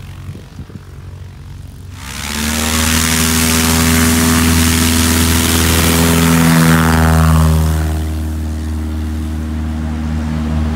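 Light single-engine taildragger's piston engine and propeller going to full power for a short-field takeoff. It jumps from a low idle to a loud, steady full-throttle drone about two seconds in, and eases off as the plane passes, lifts off and climbs away.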